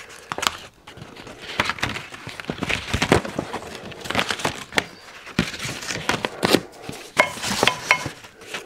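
A cardboard template and metal parts being handled on a workbench: irregular rustling, taps and clicks, with a few short metallic clinks that ring briefly near the end.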